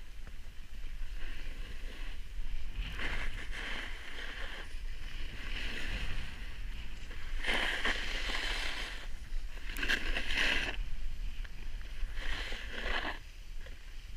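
Snow-sport edges sliding and scraping over packed snow while riding down a run, swelling into several swishes a couple of seconds apart as turns are carved, over a low steady wind rumble on the microphone.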